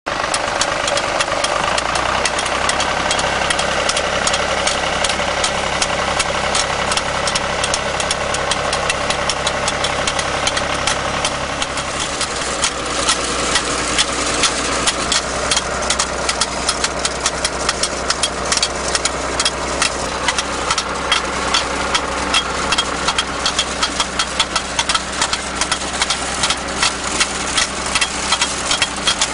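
A tractor engine runs steadily while a tractor-mounted JJ Broch bulb planter works. Its chain-driven planting mechanism gives a fast, even run of clicks that becomes more prominent about halfway through.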